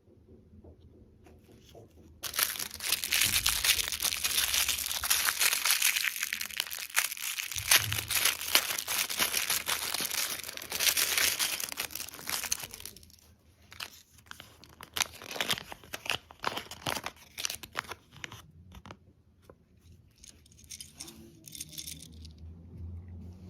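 Plastic candy packaging being torn open and crinkled by hand. There is dense crackling from about two seconds in for roughly ten seconds, then scattered crinkles and clicks.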